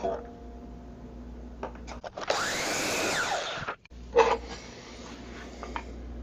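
DeWalt DW718 sliding compound miter saw running through a 45-degree miter cut for about a second and a half, its whine rising then falling. A short knock follows.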